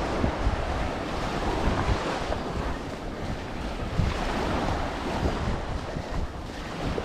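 Ocean surf breaking and washing up on a sandy beach, with wind buffeting the microphone in low gusts.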